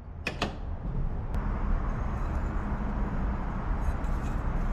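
Ryobi wet tile saw switched on with a click, its motor spinning up and then running steadily with a low hum and a hiss.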